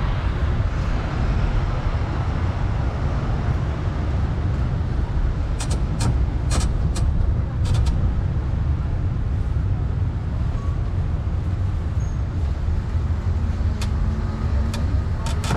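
Steady low rumble of a rubber-tyred tourist road train riding along town streets, heard from aboard a carriage. Sharp short clicks and rattles come in a cluster about six to eight seconds in and again near the end.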